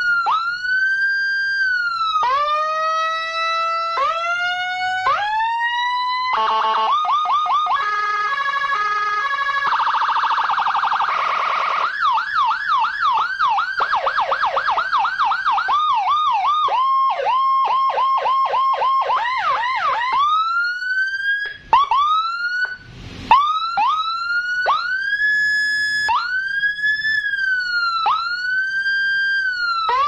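Custom Whelen-style 60-watt electronic police escort siren sounding through a 15-watt horn speaker, cycling through its tones. Repeated wail sweeps give way about six seconds in to rapid stepped and warbling yelp tones, then a short harsh blast, then wail sweeps again.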